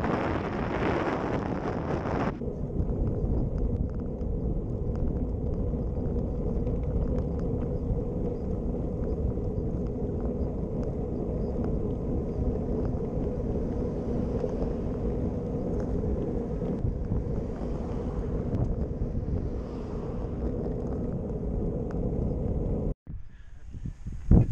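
Wind buffeting the microphone of a GoPro Hero Session mounted on a road bike, with the road noise of riding, a steady low rumble. It cuts out for an instant near the end.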